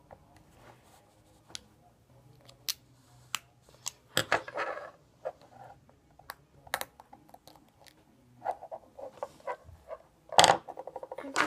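Small clicks, taps and scrapes of a lighter's plastic and metal parts being pried apart and handled, with a louder clatter near the end.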